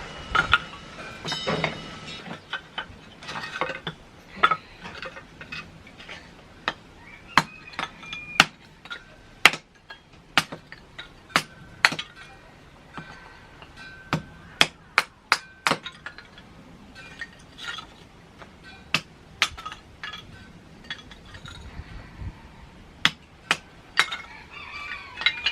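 Knife cutting Filipino long beans (sitaw) into sticks on a cutting board: sharp, irregular knocks of the blade striking the board, sometimes several in quick succession.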